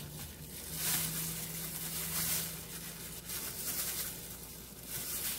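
Knife slicing through raw chicken breast on a plastic cutting board: a few soft, irregular scrapes, with light crinkling of plastic food-prep gloves, over a faint steady hum.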